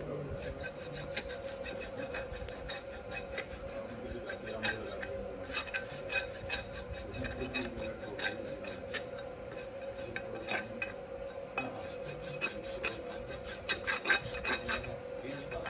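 Farrier's hoof rasp filing a shod horse's hoof wall in quick repeated strokes, the finishing rasp once the shoe is on.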